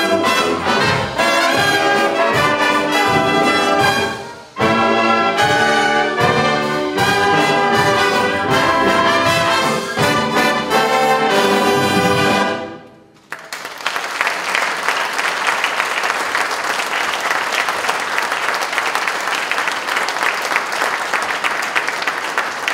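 A wind band of brass and woodwinds plays the close of a lively piece with a steady beat. It stops briefly about four seconds in, then ends on a final chord about 13 seconds in. Audience applause follows.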